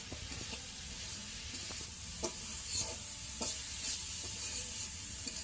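Katla fish and cauliflower curry sizzling in an aluminium pot: a steady hiss with scattered light pops and clicks.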